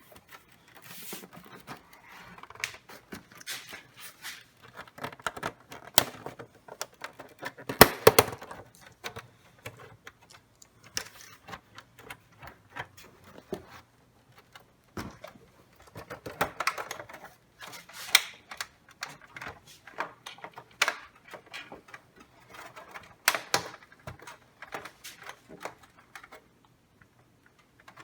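Irregular plastic clicks, taps and short scrapes from hands working on the casing and parts of a Samsung all-in-one desktop computer. The loudest is a knock about 8 seconds in.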